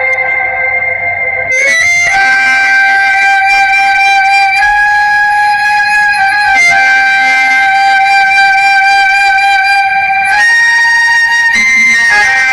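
Music played loud through a DJ sound system: a flute-like wind-instrument melody of long held notes, each stepping to a new pitch every one to four seconds.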